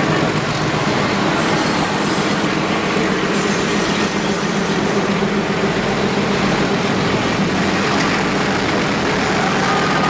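Metre-gauge train running at speed, heard from an open doorway: a steady, loud mix of the YDM4 diesel locomotive's engine drone and the wheels rumbling on the rails.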